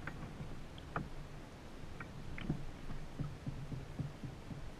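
Spinning reel being worked against a hooked fish on a bent rod: scattered sharp clicks, then a quicker run of soft low knocks in the second half, over a low steady hum.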